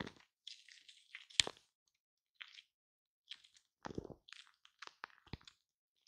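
Shaving cream being squished and rubbed on a microphone: quiet, irregular crackles and squishes, with one sharp crack about a second and a half in.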